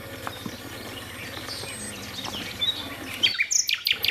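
Outdoor background with birds chirping here and there; near the end a rapid run of high, sharp chirps, several a second.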